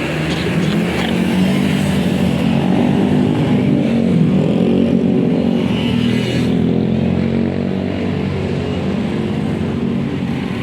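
Road vehicle engines running close by, a low steady drone that swells to its loudest about four seconds in and then eases off.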